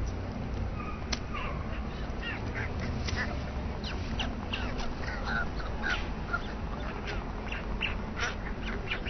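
Adult white stork coughing or expectorating hard, as if trying to bring something up: many short, harsh, separate bursts over a steady low rumble.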